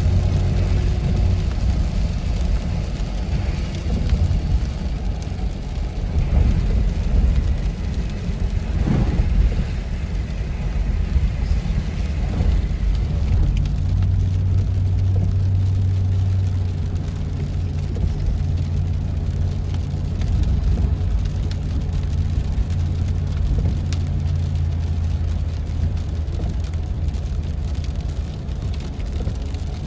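Rain falling, with the steady low rumble of a car driving on a wet road.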